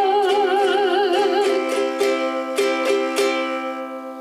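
Ukulele strummed in a calypso rhythm under a long sung note held with vibrato. The singing stops about halfway, a few last strums follow, and the final chord rings out and fades.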